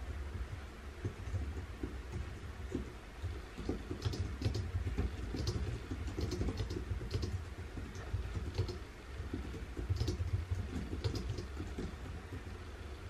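Typing on a computer keyboard: irregular keystrokes in short clusters, over a steady low room hum.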